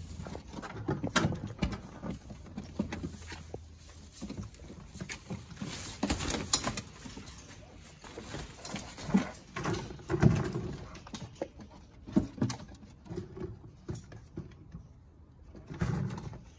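Puppies scampering and scuffling at play: paws pattering on artificial turf and the nylon play tunnel rustling, in irregular bursts with louder scuffles about a second in, around six seconds and around ten seconds.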